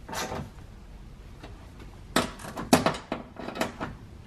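Ratchet clicking in short strokes as it tightens the 10 mm bolts holding a car door's window regulator. There is one burst at the start, then a pause of about two seconds, then three more quick bursts.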